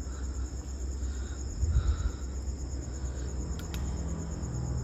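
Crickets chirping steadily in a fast, even pulse, over a low rumble.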